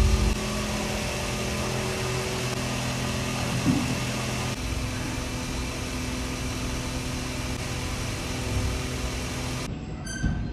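A steady mechanical hum with several held tones. It shifts slightly about halfway through and stops abruptly near the end.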